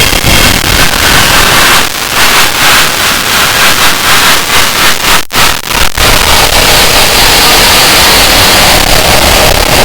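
Harsh noise music: a loud, distorted wall of static across all pitches, breaking into choppy stutters and a brief cut-out about five seconds in, then settling back into a steady roar of noise.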